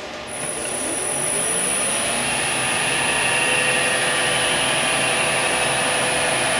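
Power wood lathe switched on and spinning up, its pitch rising over the first few seconds with a steady high whine, then running at speed.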